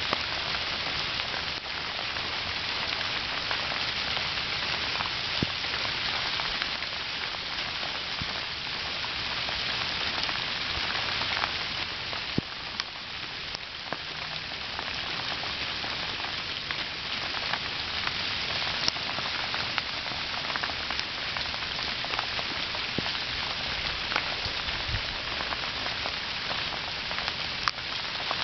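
Small hail falling steadily, a dense even hiss of pellets striking the ground and nearby surfaces, scattered with sharper individual ticks.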